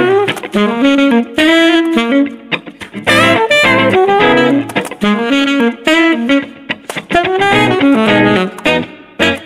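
Alto saxophone playing a jazz melody in short phrases, with a hollow-body electric guitar picking chords underneath.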